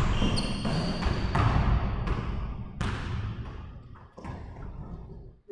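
Basketball bouncing on the gym floor, a thump about every 0.7 seconds, each echoing around the large hall; the bounces grow fainter toward the end. A short high squeak is heard about half a second in.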